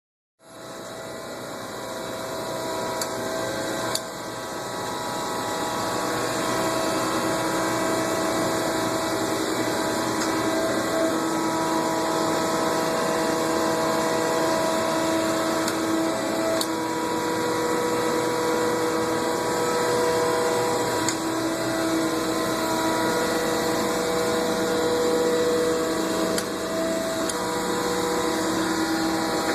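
Thompson surface grinder running, a steady machine hum with several tones that shift now and then. It grows louder over the first few seconds, with a sharp click about four seconds in.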